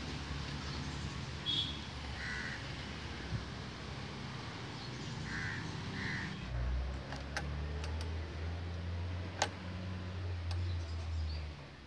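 A crow cawing a few times in the background, with a few light clicks of small metal carburettor parts being handled in the second half, over a steady low rumble.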